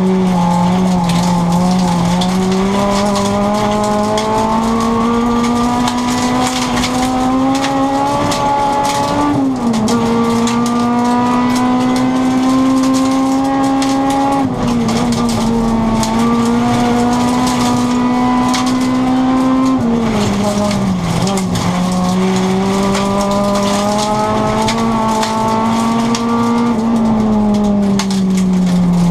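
Rally car engine heard from inside the cabin, pulling hard at full throttle. The revs climb slowly through each gear and drop sharply at three upshifts, about a third, half and two-thirds of the way through. Near the end the revs fall as the driver lifts off, while gravel crackles and rattles under the car throughout.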